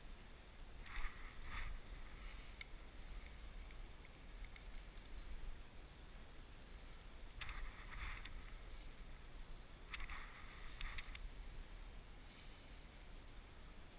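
Spinning reel being cranked in three short spells, a light ticking whir each time, over a low steady rumble of river and wind.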